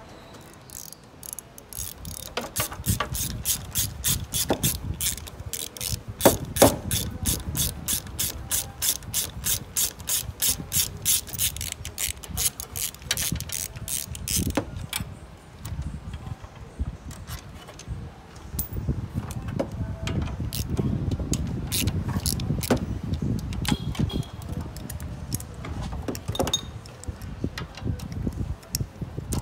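Hand ratchet wrench clicking as fasteners on a car's AC condenser are undone: a long run of rapid, even clicks through the first half, then scattered clicks and handling knocks.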